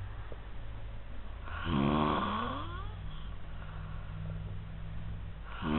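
A woman snoring loudly: one long rasping snore about two seconds in, its pitch sliding, and another starting near the end, over a steady low hum.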